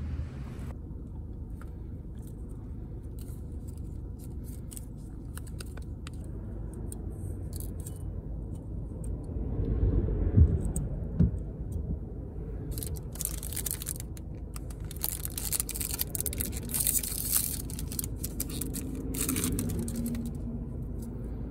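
Hands loading 120 film into a Mamiya C33 twin-lens reflex camera: clicks, scraping and rustling from the spool holder and film, with two knocks about ten seconds in and busier rustling in the second half, over a steady low car-cabin rumble.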